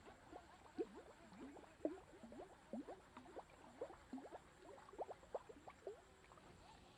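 Soft frog lure being twitched across the water surface, making a quick series of faint gurgling plops, about two or three a second, that stop near the end.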